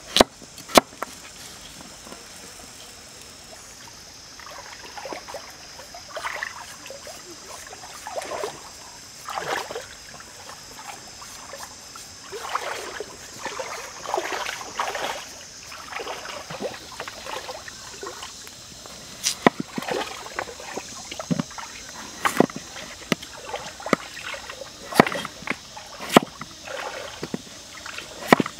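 A knife peeling a potato in the hand with repeated scraping strokes, then chopping it on a wooden cutting board with a run of sharp knocks in the last third. A stream trickles steadily underneath.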